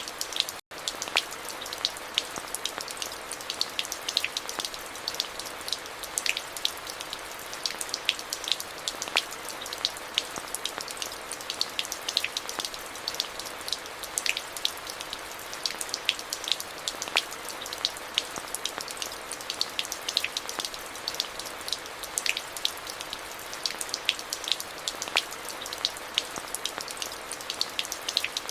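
Steady rain, a continuous hiss with many sharp ticks of single drops striking close by. The sound drops out for an instant about half a second in.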